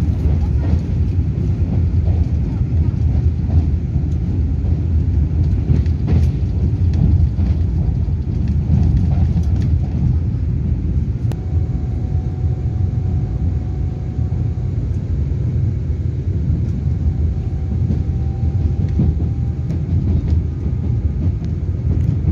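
Steady low running rumble inside the passenger cabin of a Taiwan Railway EMU3000 electric multiple unit travelling at speed, with scattered faint clicks. A faint, thin, steady high tone comes and goes in the second half.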